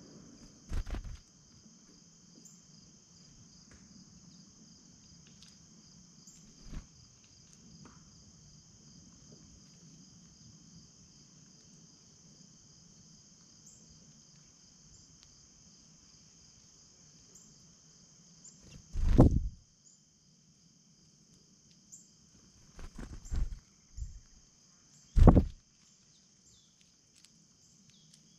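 Steady high trilling of a cricket chorus, with a faint low hum beneath. A few loud, short thumps close to the microphone, one about a second in and several more in the second half, the loudest about two-thirds of the way through.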